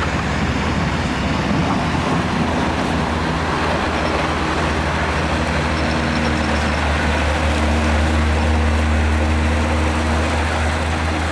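A motor vehicle's engine running steadily, a loud low hum whose pitch shifts slightly about halfway through.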